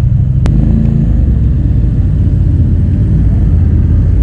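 Motorcycle engines idling close by, a steady low rumble, with one sharp click about half a second in.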